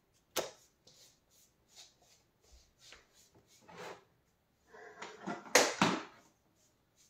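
Faint scraping and dabbing of a paintbrush with chalk paint, a run of short strokes a few tenths of a second apart, with a louder rustle of handling about five and a half seconds in.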